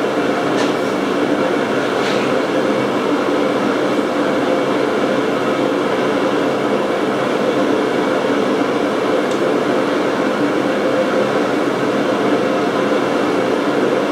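A machine running steadily in the workshop: a loud, even whir with a few steady humming tones and a couple of faint ticks.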